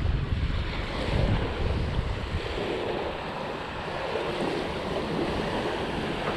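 Small waves washing onto a sand-and-pebble beach, with wind buffeting the microphone; the wind rumble is heaviest in the first couple of seconds, then eases.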